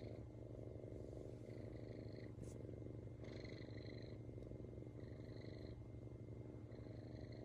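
Domestic cat purring steadily, a low rhythmic rumble, with a faint high whistle that comes and goes every second or two.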